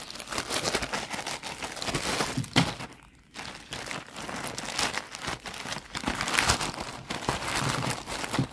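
Plastic courier mailer bag crinkling as it is handled and opened by hand, with one sharp, loud snap about two and a half seconds in and a brief lull just after.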